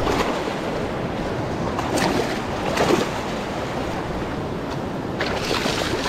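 Small surf waves washing up and draining off the sand in several rushes. Near the end, water splashing as a hooked halibut thrashes in the shallow wash.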